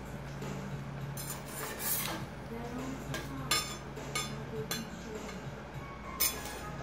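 Steel spatula and knife clinking and scraping against a steel teppan griddle as a slice of toast is lifted and turned, with several sharp separate clinks, the loudest about halfway through and again near the end. A low steady hum runs underneath for the first half.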